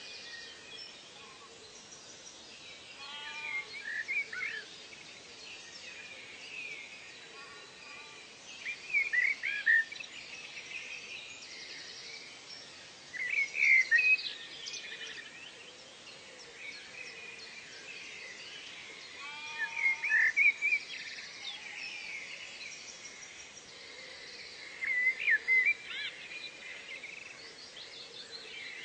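Birds singing over a steady background hiss: a loud phrase of quick chirps comes back every five or six seconds, with a lower series of short arched notes a few times.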